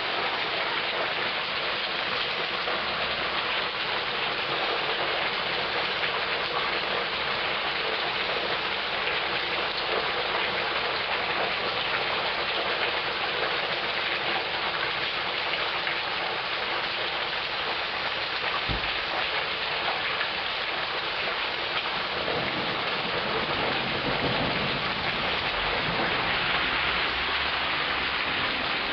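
Heavy rain pouring steadily, a constant hiss of rain on the street, with a low rumble of thunder rising in the last several seconds.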